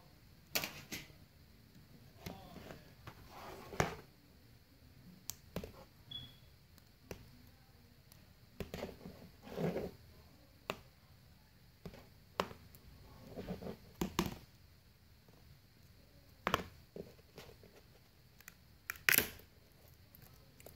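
Irregular light taps, clicks and short rustles of thin plastic sheets and a glass screen panel being picked up, moved and set down on a wooden surface, along with handling noise; the sharpest clicks come about 4 s in and near the end.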